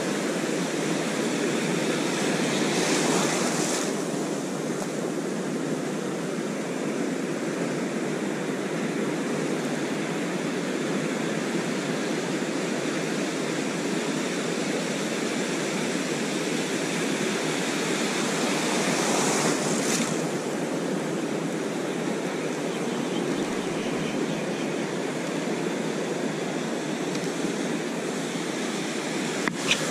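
Ocean surf washing in around the legs in shallow water, a steady rush with two louder surges as waves break, about 3 seconds in and again near the middle. A brief click near the end.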